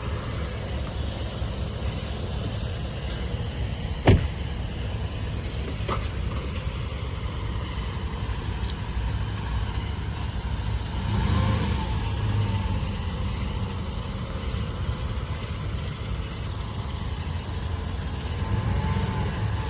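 A vehicle engine idling with a steady low rumble and a faint high whine, with a sharp click about four seconds in.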